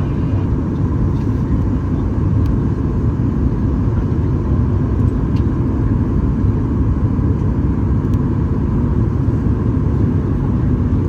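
Steady cabin noise inside a Boeing 737 MAX 8-200 on approach: a dense, even rumble of its CFM LEAP-1B engines and airflow past the fuselage, with a faint steady whine.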